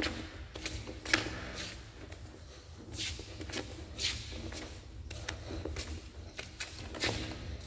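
Footsteps scuffing along the concrete floor of a round storm-drain pipe, about two steps a second.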